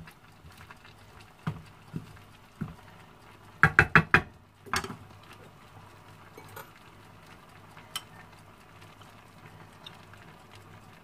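Wooden spatula stirring vegetables in a nonstick frying pan, scraping and knocking against the pan. About four seconds in comes a quick run of four loud knocks and one more just after, then only a few faint clicks.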